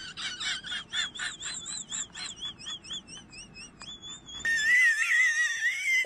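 Kitten making high-pitched cries: a quick run of short, quavering mews, about four or five a second, then, after a cut, a longer wavering high cry.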